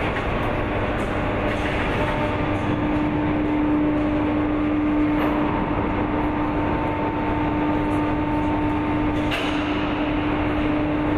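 Steady machine noise of a large industrial hall: an even rush with a constant low-pitched hum and a fainter higher tone above it. There is a single light knock about nine seconds in.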